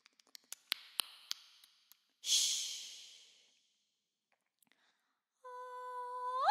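A few soft clicks, then a woman's breathy sigh into a close studio microphone that fades over about a second. After a pause she starts a sustained sung note that swells and slides up in pitch at the very end.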